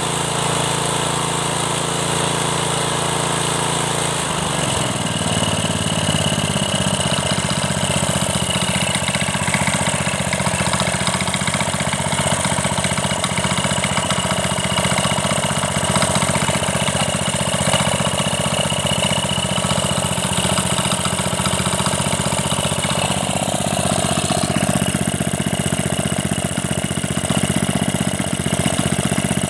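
196cc single-cylinder engine of a concrete power trowel running steadily; about four seconds in its speed drops and it settles into a lower, even idle.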